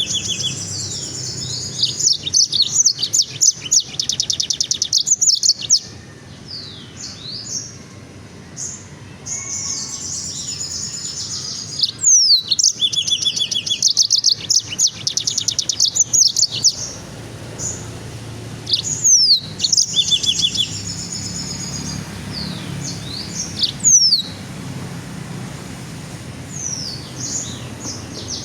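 A songbird singing in bursts of rapid, high trills and chattering, broken by sharp downward-sweeping whistles. The song quiets for a few seconds between bursts, about a third of the way in and again near the end.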